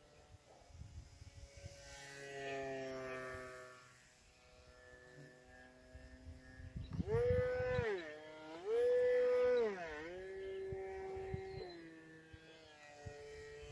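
Small RC plane's electric motor and propeller whining in the air, its pitch rising and falling with the throttle. Two loud high-throttle bursts about seven and nine seconds in, the second held steady for about a second.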